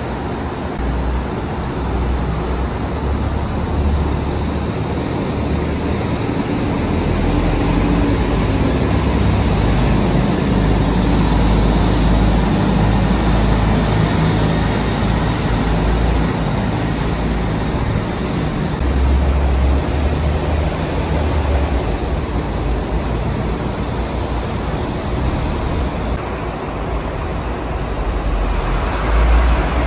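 City buses pulling out of a covered bus interchange, engines running with a steady low rumble that swells and eases as they move off. There is a shift in the sound near the end, as the scene changes to street traffic.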